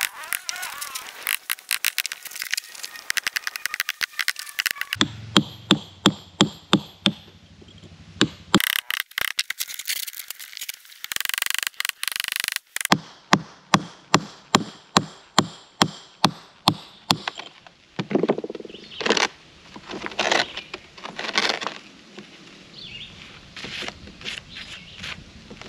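Steel hammer striking a hand chisel on a fieldstone, sharp ringing strikes in quick runs of several a second, working to split the stone. A few seconds of steady rushing noise sits under the strikes in the middle, and the knocks near the end are softer.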